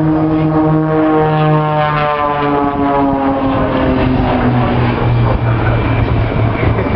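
Piston engines of aerobatic propeller planes flying overhead: a steady droning hum whose pitch slides down from about two seconds in as the aircraft pass, then runs on lower.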